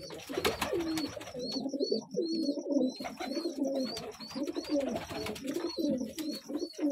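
Domestic pigeons cooing, several overlapping coos in the loft, with a faint high chirp repeating about three times a second.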